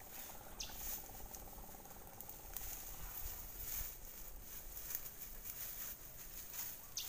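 Dry grass and reeds rustling and crackling as they are pushed aside and handled, with scattered light clicks. A brief high chirp sounds about half a second in and again near the end.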